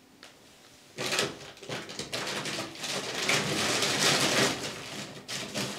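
Rustling and knocking of a person rummaging through bags and boxes, starting about a second in.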